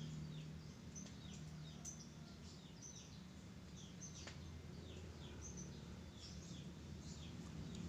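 A small bird chirping faintly and over and over, short high falling chirps about one or two a second, over a low steady hum.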